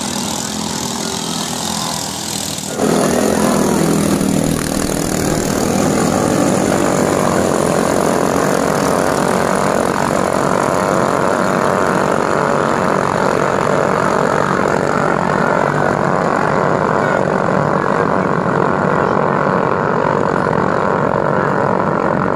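Several ketinting longtail race boats in the 13–18 hp underbone-engine class running flat out together, a steady dense engine drone. It gets suddenly louder about three seconds in.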